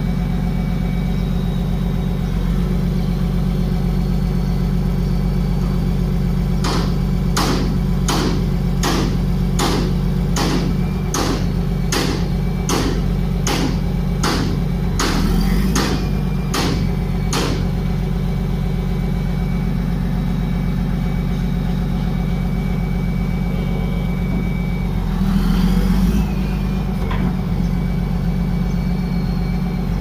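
Wheel loader's diesel engine idling steadily, heard from the cab. In the middle there is a run of about fifteen evenly spaced sharp clicks, roughly three every two seconds, lasting about ten seconds. About five seconds before the end comes a brief louder rush of noise.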